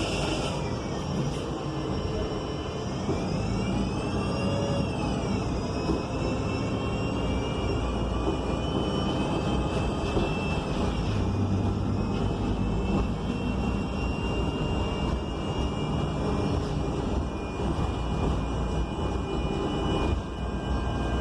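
ElDorado National ENC Axess transit bus with a Cummins Westport L9N natural-gas engine and a Voith D864.6 automatic transmission, heard from inside while driving. A steady low rumble runs under a high whine that rises and falls a few seconds in and drops again about halfway through.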